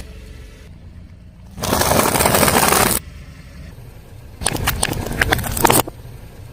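A car tyre rolling over and crushing objects over a low engine rumble: a brief rushing hiss about two seconds in, then a burst of crackling and snapping near the end.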